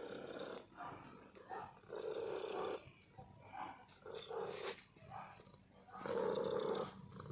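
Domestic cat purring up close, in rough surges that come and go every second or two with its breathing.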